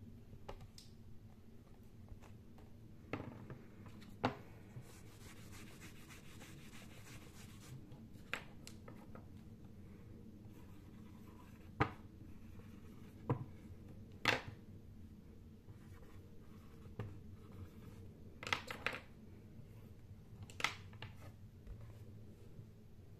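Dry-erase marker writing on a small plastic-framed whiteboard: faint scratching and rubbing, with scattered sharp clicks and knocks from handling the marker and board.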